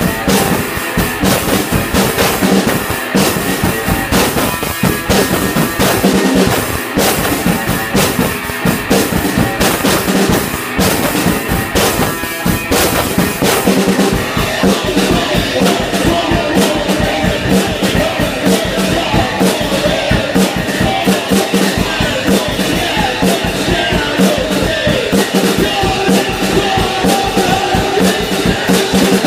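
Live rock music from a drum kit and an electric guitar played together, the drums keeping a steady beat. About halfway in the drum strokes thin out and a wavering guitar line comes to the front.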